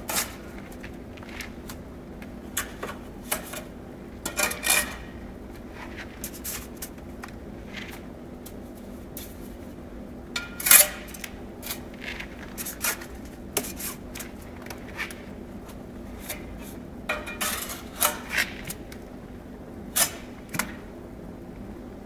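Bricklaying work: a steel trowel and bricks clinking, tapping and scraping against brick and mortar as a cut brick is bedded into place, in scattered irregular strokes over a steady low hum, the loudest knock about eleven seconds in.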